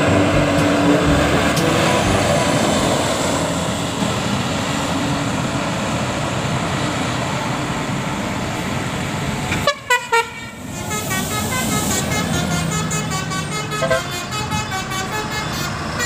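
Road noise from passing heavy vehicles. About ten seconds in, it breaks off and a Basuri telolet multi-tone bus horn starts playing a fast, rippling melody of quickly changing notes.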